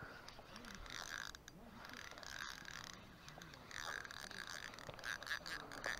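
Spinning fishing reel being cranked to retrieve line: a steady mechanical whirr of its gears with fine rapid ticking, growing louder for the last couple of seconds.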